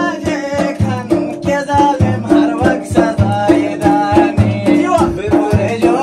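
A man singing a song to a quick, steady percussion beat.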